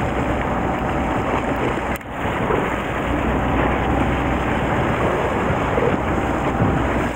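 Sea water washing against the side of a fishing boat, with wind on the microphone and a steady low hum underneath. The noise briefly drops about two seconds in.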